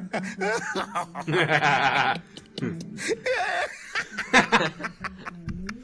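Music with a man's laugh over it, with people laughing along.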